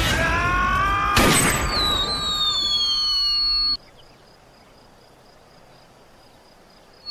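Rising whistling tones, then a loud bang about a second in, followed by several descending whistles. The sound cuts off suddenly just before the four-second mark, leaving only a faint hiss.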